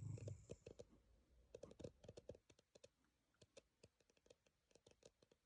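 Near silence, with a few faint scattered clicks in the first two seconds or so.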